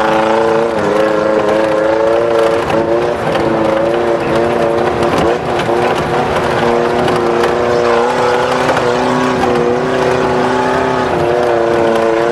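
Off-road vehicle's engine running at steady revs, heard from inside the cab as it drives a rough dirt track, with a rattly road-noise haze underneath.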